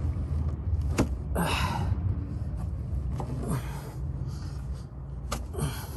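Hand work on a serpentine belt being pulled over an engine pulley with a towel: two sharp clicks, one about a second in and one near the end, and a few short hissing rushes, over a steady low rumble.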